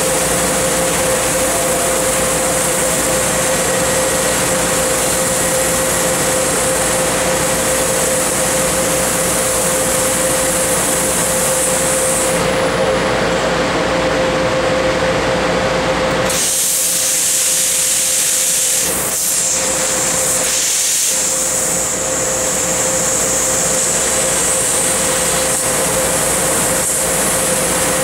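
Tanaka 6 kW laser cutting machine cutting 3/4-inch mild steel: a loud, steady hiss with a steady hum underneath. A little past halfway the hum and the lower part of the sound drop out for several seconds, leaving a high hiss, then the full sound returns.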